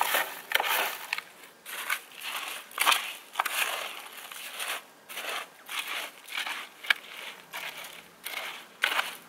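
Frosties and melted chocolate being stirred with a metal spoon in an aluminium mess tin: the cereal flakes crunch and crackle in uneven strokes.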